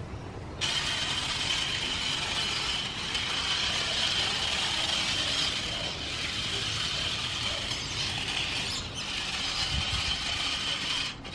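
Battery-powered remote-control toy stunt car whirring as it is driven over concrete paving, a steady high motor-and-gear whine with a few brief breaks.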